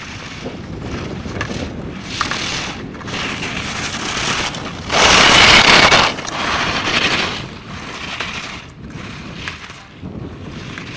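Alpine skis carving slalom turns on firm snow, with wind buffeting the microphone; the hiss of the edges swells to a loud rush lasting about a second, about five seconds in, as the skier passes close by.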